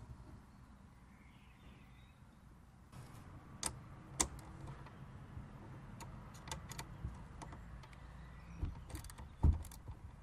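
Irregular metallic clicks and taps of a small hand ratchet working the self-locking nuts off the tablet mount's bolts, with a louder knock near the end, over a faint low rumble.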